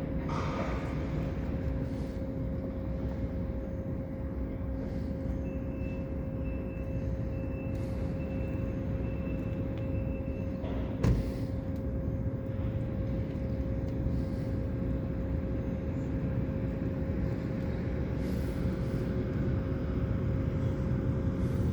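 Steady low machine rumble with a constant hum, loud throughout. A faint pulsing high tone runs for several seconds in the middle, and there is a single sharp click about eleven seconds in.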